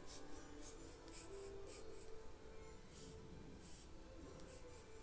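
Short, irregular scratchy rustles of small plastic doll parts being handled and squeezed in the hands.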